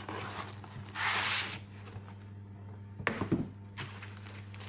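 Packaging handling as a laptop in foam end caps and a plastic bag is slid out of its cardboard box: a brief scraping rustle about a second in, then a few knocks and bumps about three seconds in.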